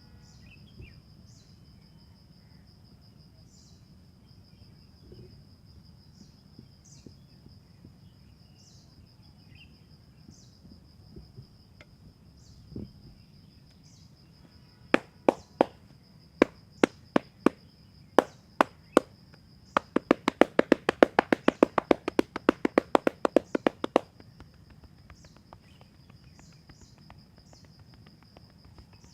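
Hands striking a person's back in a massage: about ten separate sharp slaps from about halfway in, then a quick run of chopping strikes, several a second, for about four seconds. A steady high insect trill runs underneath.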